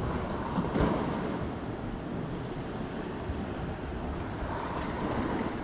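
Gentle sea washing at the shore under wind noise on the microphone: a steady rushing that swells slightly about a second in and again near the end.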